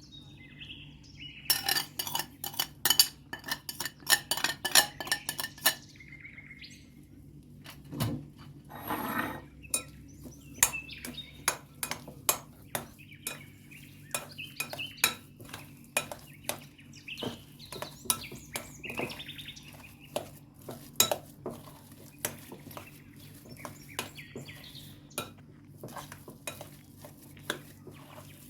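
Kitchen utensils clicking and clinking against dishes and pans: a quick run of clicks in the first few seconds, then scattered clinks, over a steady low hum.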